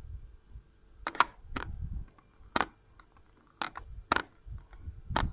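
Sharp clicks and taps, about six spread out, over a low rumble: hands and utensils handling fish pieces as they are dredged in flour on a plate.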